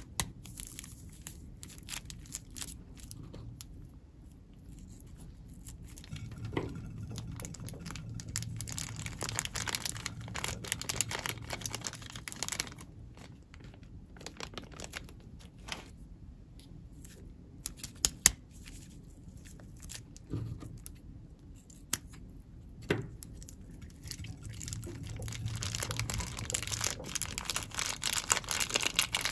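Thin clear plastic bags crinkling and rustling as they are handled and torn open, with scattered sharp clicks.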